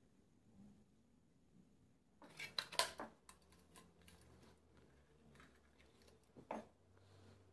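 Metal clicks and clatter from the body and covers of an old Kodak camera being handled: a quick cluster of clicks a little over two seconds in, a few light taps, and one more sharp click near the end.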